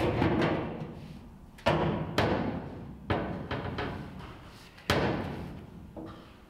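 A steel angle-iron window frame being knocked into a window opening cut in a shipping container's corrugated steel wall: a series of about six heavy metallic thuds at uneven intervals, each ringing out and fading inside the steel box.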